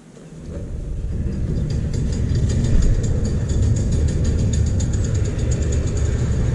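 Motorized garage door opener raising a sectional garage door: a steady motor rumble with a fast run of regular clicks from the rollers and drive, starting a moment in and the clicking stopping near the end as the door reaches the top.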